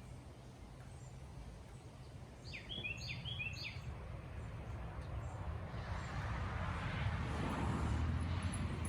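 A bird calls three times in quick succession, each call a falling note followed by a shorter one, over a low steady rumble. From about six seconds in, a rushing noise builds up and is loudest near the end.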